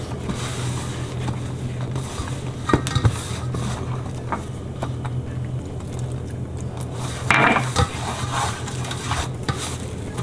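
Hands mixing and pressing crumbly flour-and-ghee dough in a stainless steel bowl: dough rubbing and squashing against the metal, with a few light knocks of the bowl, as water is added to bind it.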